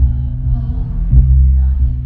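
Live band playing loud through a concert PA, heavy deep bass dominating, its notes changing about every half second, with faint singing above.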